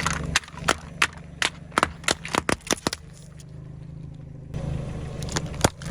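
Car engine running at low speed while a quick, irregular series of sharp cracks and snaps sounds for about the first three seconds, as crunchy objects are crushed under the tyres; the engine grows louder again near the end.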